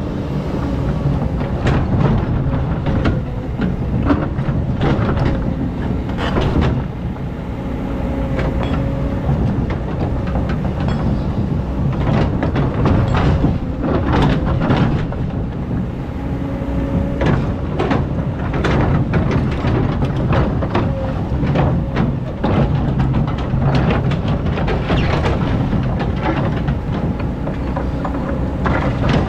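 Excavator's diesel engine running steadily under load while it digs sand, with many short knocks and scrapes from the bucket and arm throughout.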